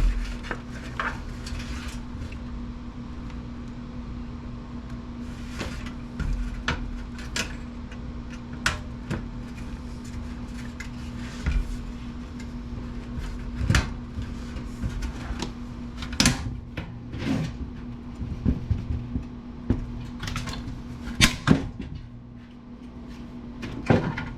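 Scattered clicks and knocks of a desktop PC's front-panel parts being handled and pulled apart by hand, over a steady low hum.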